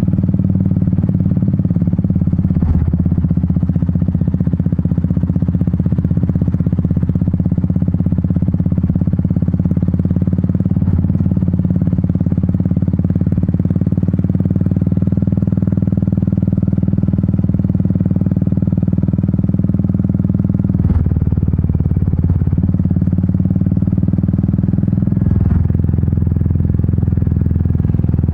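Royal Enfield Meteor 350's single-cylinder engine and exhaust running steadily while riding, with a few brief knocks.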